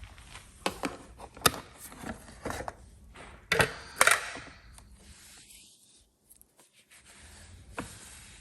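Plastic clicks and knocks of a Joyami cordless wet-dry vacuum being handled as its dirty-water waste tank is taken out for emptying after the self-cleaning cycle. The loudest knocks come about three and a half to four seconds in.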